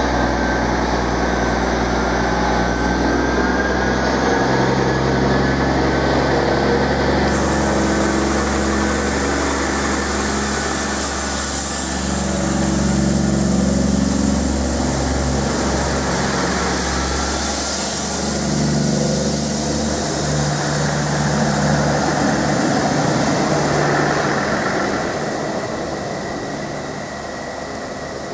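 Class 159 diesel multiple unit running close past under power. Its underfloor diesel engines change note in steps a few times, then the sound fades as the train draws away.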